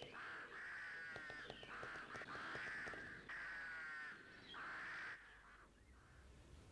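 Crows cawing: a run of about six harsh caws, some drawn out, ending about five seconds in.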